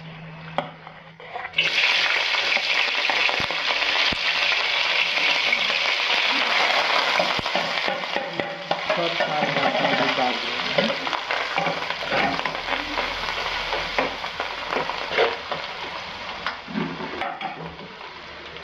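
Chopped vegetables sizzling and crackling in hot oil in a wok while being stirred. The sizzle starts suddenly and loudly about a second and a half in, as food goes into the hot oil, and eases a little near the end.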